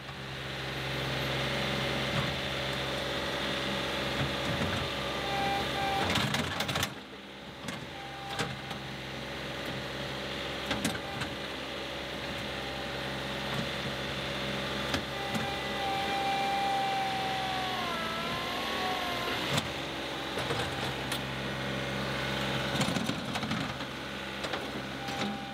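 John Deere 2038R compact tractor's diesel engine running under load while its front loader digs the toothed bucket into sod, with a steady whine over the engine hum. Near two-thirds of the way through the whine wavers and drops in pitch as the tractor strains against the ground.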